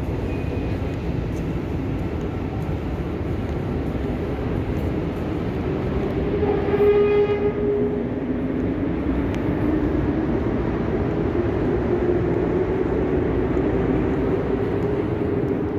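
A metro train running in the station, a steady low rumble carried down the passageways. About seven seconds in a short horn-like tone sounds, the loudest moment, followed by a pitched motor whine that wavers slowly.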